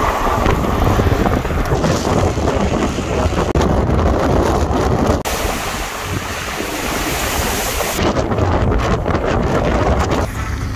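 Wind rushing over the microphone with road rumble from a moving vehicle, a loud, steady rushing noise. Its tone changes abruptly about five seconds in and again near eight seconds.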